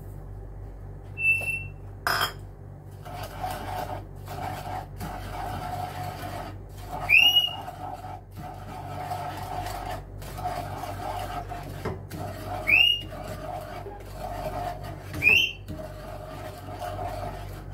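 Wooden spatula stirring and scraping sugar in melted butter around a pan, a steady rasping rub in strokes, with three short high squeaks. A short clink about a second in and a knock about two seconds in.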